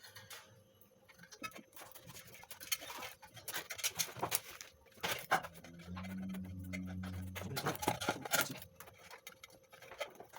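Irregular rustling, scraping and light tapping as self-adhesive asphalt sound-deadening sheet is handled and pressed onto the inside of a metal mini-keg, with a brief low hum about six seconds in.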